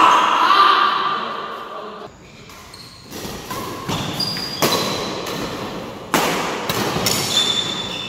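Badminton rally: rackets striking the shuttlecock several times, one to two and a half seconds apart, each hit sharp and echoing in the hall. Short high squeaks of shoes on the court floor come between the hits.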